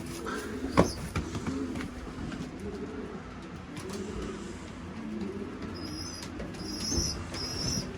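Racing pigeons in a loft cooing, low rolling coos repeating one after another. There is a sharp click about a second in, and from about six seconds in a run of short, high, thin peeps.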